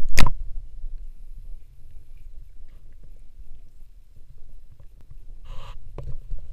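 Muffled low rumble of water moving against a submerged action camera, with small knocks from handling. A loud knock comes right at the start and a brief hiss about five and a half seconds in.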